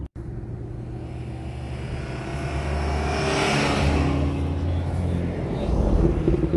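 A car driving past: a low engine note builds, with a swell of tyre and wind rush as it goes by about three and a half seconds in. Another engine note rises near the end.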